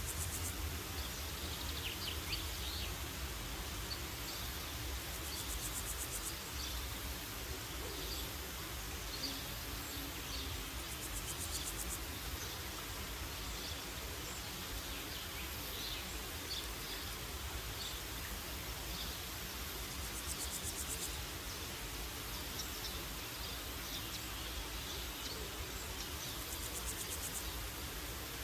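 Woodland ambience: scattered short birdsong chirps over a steady low rumble, with a high, rapidly pulsing insect trill lasting about a second that returns every several seconds.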